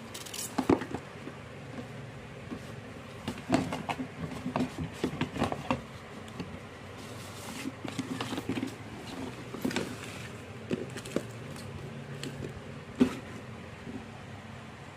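Handling noise: irregular clicks, taps and light knocks over a steady low hum, with the sharpest knocks about a second in, around three and a half seconds in and near the end.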